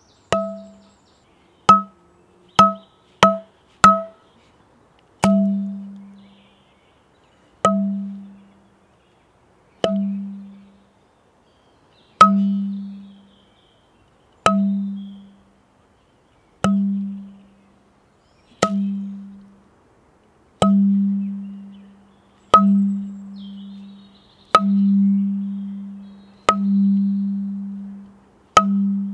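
Metal struck over and over, each sharp hit leaving a clear low ringing tone that dies away. Several quick hits come close together at first; after that there is one about every two seconds, and the ringing lasts longer toward the end.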